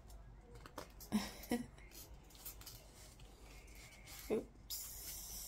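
Small clicks and rustles of a watch strap and metal buckle being handled and fastened around a wrist, with a few short murmurs and a brief rustle near the end.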